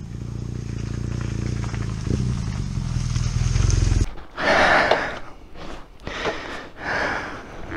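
A motorcycle engine, the BMW R nineT's boxer twin, running and growing louder as it draws near, then stopping abruptly about four seconds in. After it, a string of short, irregular bursts of heavy breathing close to the microphone.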